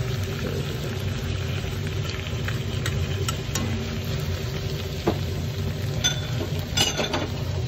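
Chopped spice paste, tomatoes and shrimp sizzling in a hot oiled wok as a metal spoon stirs them, with a few sharp clicks of the spoon against the pan. A steady low rumble runs underneath.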